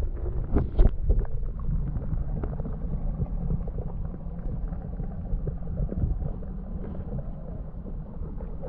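Muffled low rumble of water heard underwater beside a kayak hull, with a few sharp knocks in the first second.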